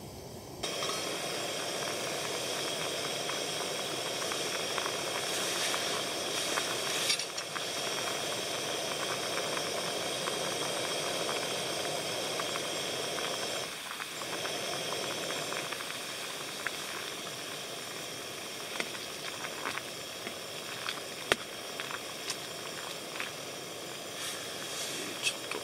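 Steady hiss of a camp gas stove's burner under a pot of simmering hotpot broth. Light clinks and scrapes of a ladle in the pot come in the second half.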